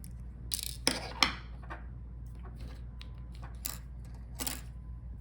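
Light clicks and short scrapes of small parts being handled: a laptop's short NVMe SSD and its extension bracket being worked out by hand, with the sharpest click about a second in.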